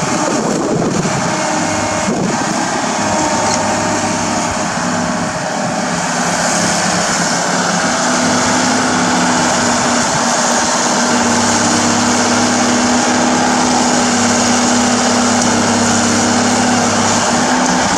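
Komatsu crawler excavator's diesel engine running under load as the machine digs and raises a full bucket, with a few knocks in the first couple of seconds as the bucket bites into rocky soil. The engine note steadies and grows a little louder about six seconds in.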